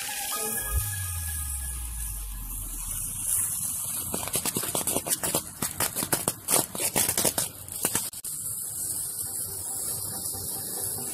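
Small backyard firework burning: a steady hiss, then a dense run of rapid crackling pops for about four seconds in the middle.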